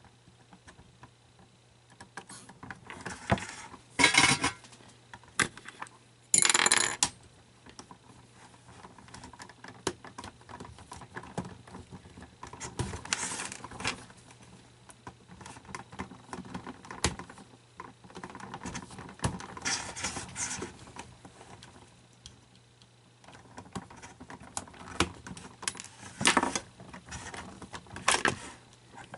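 Irregular clinking, clattering and rustling of small hard objects and plastic parts being handled while a plastic animatronic toy is taken apart, with a few louder rattles about four, six and twenty-six seconds in.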